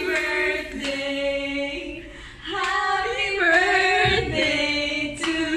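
Several women's voices singing together in long held notes that step up and down in pitch.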